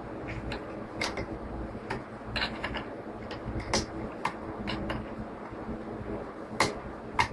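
Irregular light clicks and taps of a small screwdriver working against the rubber bands, clamps and wooden planking of a model ship's hull. Two sharper clicks come near the end, over a faint steady low hum.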